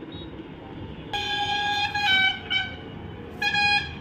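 A horn sounding in steady held notes that alternate between two close pitches: a higher note about a second in, a slightly lower one right after, then the higher note again near the end.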